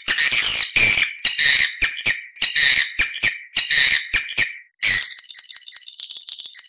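Edible-nest swiftlets calling, from a lure-call recording of the kind played to draw swiftlets into nesting houses. Rapid repeated chirps come about three a second, then from about five seconds in a faster, thinner twittering chatter.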